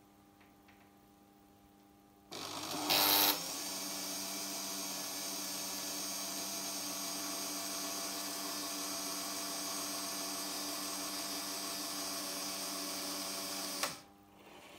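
Märklin 7027 H0 model turntable's electric drive motor whirring steadily as the bridge turns. It starts with a short, louder burst about two seconds in and cuts off sharply near the end.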